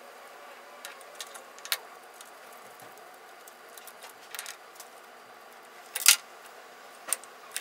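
Light metallic clicks and clinks of a small wrench and pliers on the steel clamps of a milling-machine setup as the workpiece is unclamped, with a louder metal clank about six seconds in and another about a second later.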